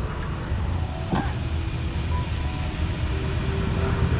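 Steady low roar of a gas stove burner running under a pan of curry gravy.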